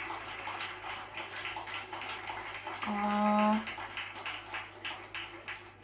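Recorded applause: many hands clapping in a dense patter, with a short voice held on one note about three seconds in.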